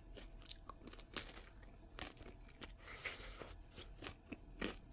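Faint chewing of a bite of Nestlé Drumstick cone, its crisp waffle cone and peanut topping giving scattered small crunches and mouth clicks.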